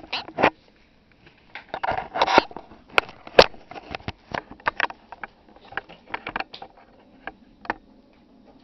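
Handling noise from a camera being moved about against clothing: fabric rubbing on the microphone and knocks on the body, an irregular run of sharp clicks and scraping rustles that thins out near the end.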